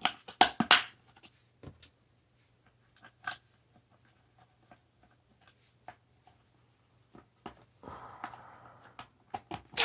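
Scattered clicks and taps of a car's blower motor assembly being handled on a table, with a quick cluster of louder clicks in the first second, single ones spread through the middle, and a brief rubbing noise near the end.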